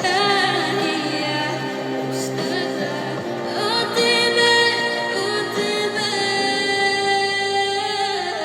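Music: a song with sustained, wavering sung notes over steady accompaniment.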